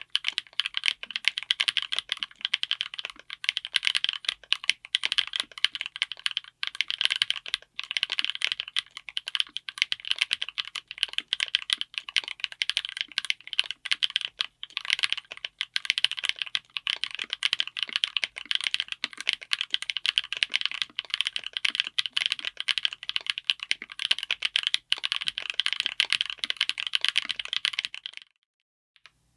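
Fast, continuous typing on a mechanical keyboard with Gateron Smoothie Chocolate tactile switches, all-POM housings and stems, in an aluminum Tofu60 case with an FR4 plate. The typing stops about a second before the end.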